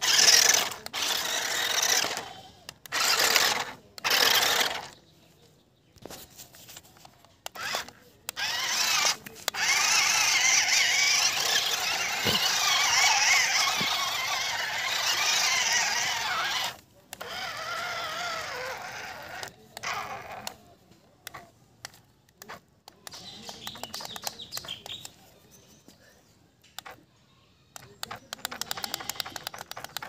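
Toyshine RC stunt car's small electric drive motors whining in short bursts as the throttle is worked, then a long run of about seven seconds with the pitch wavering as the paddle wheels churn through mud.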